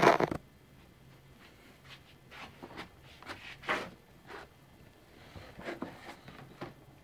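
Handling noise from a cardboard motherboard box and the camera being moved: a loud bump right at the start, then a string of soft rustles and light knocks as the box is picked up and tilted.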